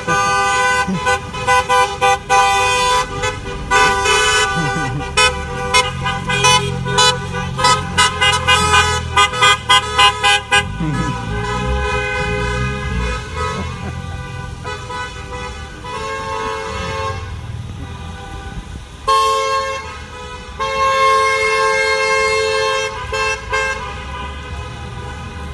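Car horns honking from a line of passing cars. For the first ten seconds or so there are many short, quick toots from several horns at once, then a few longer held honks over the low rumble of the engines.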